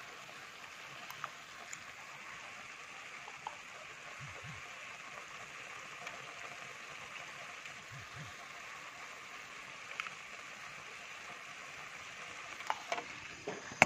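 Pot of potato-leaf stew simmering on the stove: a steady soft bubbling hiss with a few faint pops.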